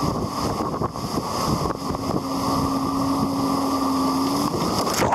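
Speedboat towing a banana boat, its engine running steadily under wind rushing over the microphone and water noise. A steady engine tone holds through the middle.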